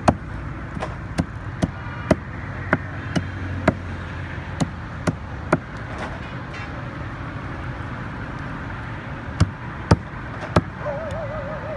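Heavy knife chopping fish on a wooden chopping block: a run of sharp chops about two a second, a pause of a few seconds, then three more chops near the end, over a low steady background hum.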